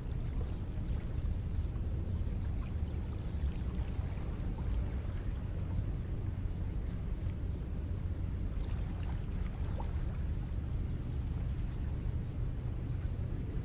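Steady, even low rumbling noise of water and wind at the shoreline, with a few faint scattered ticks.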